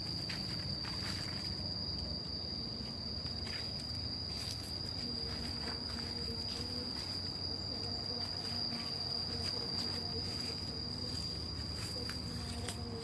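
An insect calling in one steady, unbroken high-pitched tone, over a low rumble of background noise with a few faint clicks.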